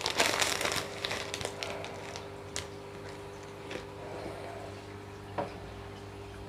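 Crinkling and rattling of a fish-food container being handled during the first second, then a few scattered light clicks, over a steady low electrical hum.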